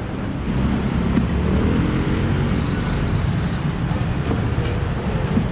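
Steady street traffic: a low rumble of passing vehicles, with a brief high whine in the middle.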